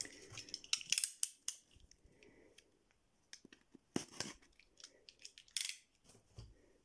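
Packing tape on a cardboard box being slit open with a blade: a series of short scrapes and clicks as the box is handled.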